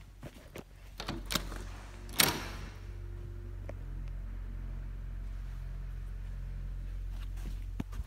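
Footsteps and the glass double doors being handled, with a loud sharp knock about two seconds in, then a steady low hum.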